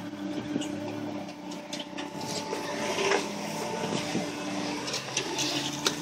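Jeep engine running steadily at low revs as it crawls over sandstone ledges, with several short clicks and scuffs scattered through it.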